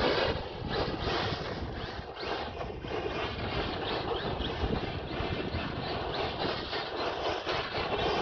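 Traxxas Maxx RC monster truck with brushless motor running hard on loose dirt: motor whine mixed with tyres spinning and skidding, spraying dirt in a continuous rough rush.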